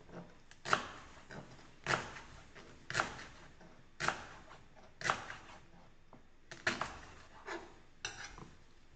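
Kitchen knife slicing leeks on a cutting board: the blade knocks the board about once a second, with a few cuts coming closer together near the end.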